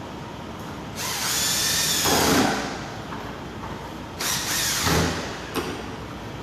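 Cordless power drill/driver running in two short bursts, the first about a second long and the second shorter near the end, as screws are driven while a lever lock is fitted to a door.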